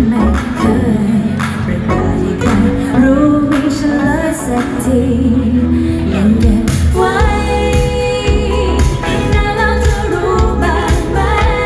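Live pop band playing with a female lead singer: drums, bass, electric guitars and a wavering sung melody. About seven seconds in, a held chord of steady keyboard-like tones comes in under the voice.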